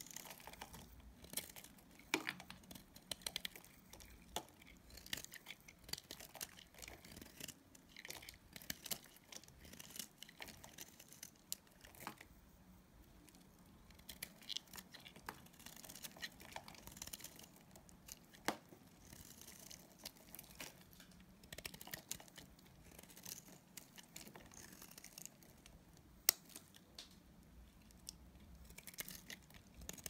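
Snap-off utility-knife blade shaving flakes and curls off a bar of dry soap: a run of crisp scraping crackles with short clicks scattered throughout, and one sharper, louder click a little before the end.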